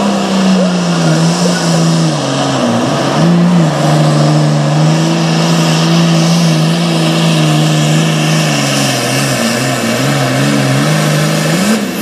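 Super Farm class pulling tractor's diesel engine running hard under full load as it drags the weight sled, loud and steady, its pitch sagging and wavering several times as the load bites. The engine note rises briefly near the end.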